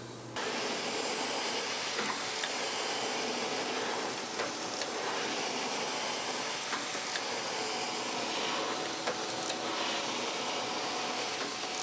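Landis surface grinder's abrasive wheel grinding the angled face of a tapered gib set up on a sine plate: a steady high hiss of the wheel cutting metal, starting suddenly about half a second in.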